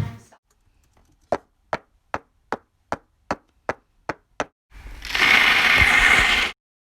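A series of nine evenly spaced sharp knocks, about two and a half a second, followed by a burst of hissing noise lasting nearly two seconds that cuts off abruptly.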